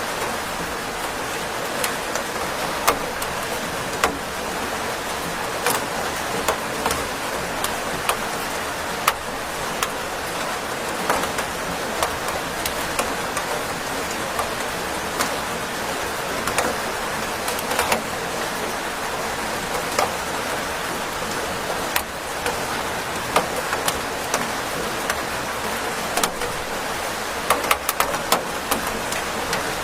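Steady rain: a constant hiss of falling rain with frequent sharp taps of individual drops striking a hard surface, heavier clusters of taps near the end.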